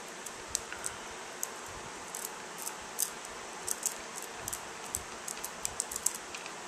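NeoCube neodymium magnet spheres clicking against each other as a line of them is drawn off the cube: a string of light, sharp clicks at irregular intervals, sometimes several close together.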